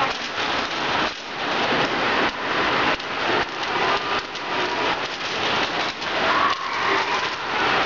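Many pennies rolling around a spiral coin funnel at once: a dense, continuous rolling clatter of coins on the curved bowl.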